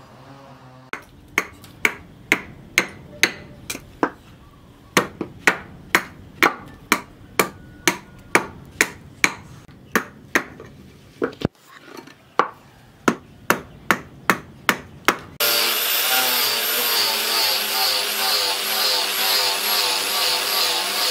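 Hammer blows on a steel axe head, evenly paced at about two a second. About fifteen seconds in it gives way to an electric angle grinder with a sanding disc running steadily against wood, sanding the axe's wooden handle.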